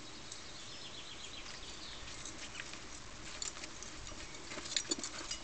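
Faint outdoor background with small birds chirping, and a few light clicks or taps near the end.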